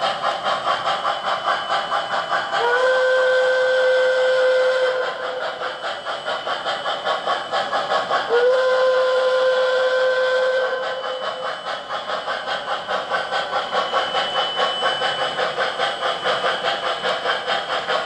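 MTH Premier O-gauge Shay locomotive's onboard sound system: rapid, even steam chuffing throughout, with two long whistle blasts, each sliding up briefly into a steady tone for about two and a half seconds. The first starts about three seconds in, the second about eight seconds in.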